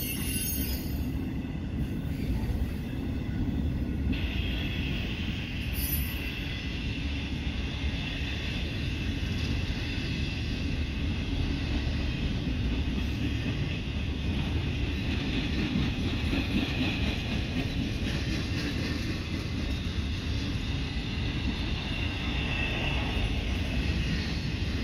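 Intermodal freight train of flatcars carrying truck trailers and containers rolling steadily past: a continuous rumble of wheels on rail. A higher whine joins about four seconds in.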